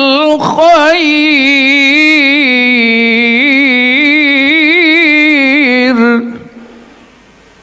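A male reciter chanting Quran recitation (tilawah) into a microphone: one long melismatic phrase whose pitch winds up and down on a held vowel. The voice stops about six seconds in and fades away in reverberation.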